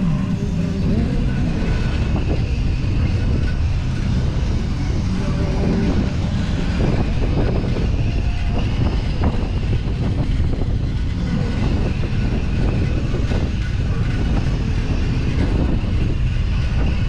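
Steady wind rumble on the microphone of a camera riding along on a bicycle, with faint voices of passers-by.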